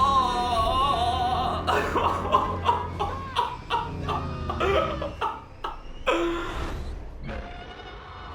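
Film soundtrack of a monster-versus-fighter-jets aerial battle: a loud cry that wavers in pitch, then a rapid run of sharp hits and gliding sounds over a low rumble.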